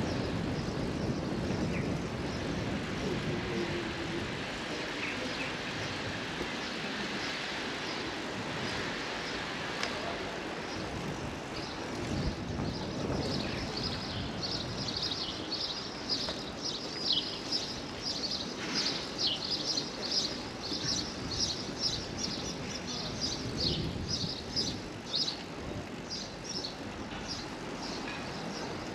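Outdoor ambience with a steady low rumble. From about twelve seconds in there is a run of short, high chirps, several a second, that thins out near the end.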